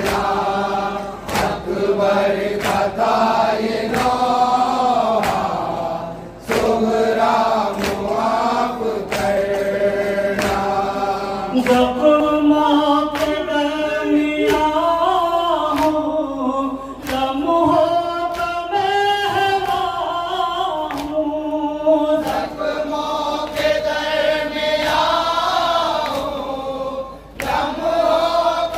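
Men chanting a noha, a Shia lament, in chorus, with a regular chest-beating (matam) strike about every 0.8 seconds. About twelve seconds in, a single lead reciter sings the verse over the strikes, and the chorus joins again near the end.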